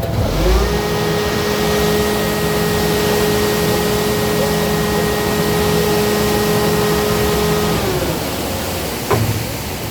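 A motor-driven machine spinning up within the first second, running steadily with a loud hiss and an even hum, then winding down at about eight seconds.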